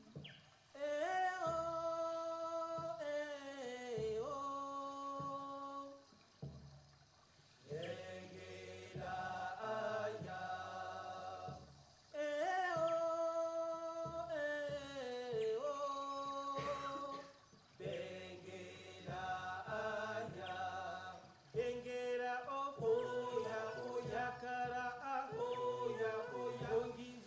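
A recorded song: a voice singing a slow melody in long held notes that slide down at the end of each phrase, with the opening phrase sung twice.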